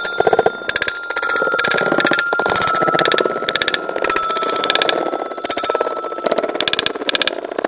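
Glass marbles rolling and clattering down a wooden marble-run track and striking a set of metal sound bars, which ring with held bell-like tones over a dense rattle of rolling and knocking marbles.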